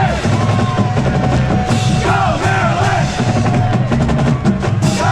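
Marching band drumline playing a rapid drum cadence of snare and bass drums, with voices shouting and chanting over it.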